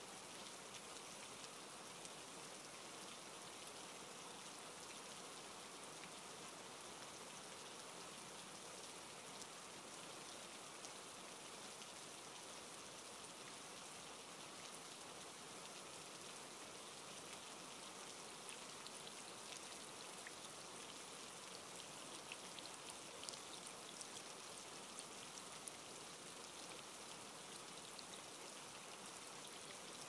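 Faint, steady rain falling, with scattered sharper drop ticks in the second half.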